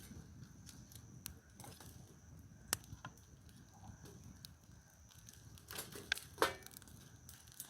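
Wood campfire crackling: irregular sharp pops and snaps over a low steady rush, with one loud pop a little under three seconds in and a louder cluster of pops around six seconds in.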